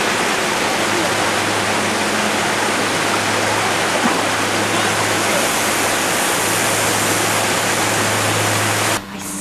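Steady rushing noise with a faint low hum under it, which cuts off suddenly about a second before the end.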